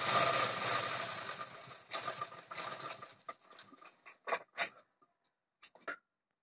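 Sewing machine stitching through the elastic waistband, running steadily and then slowing to a stop about two to three seconds in. Then a few short sharp clicks as the thread is snipped with scissors.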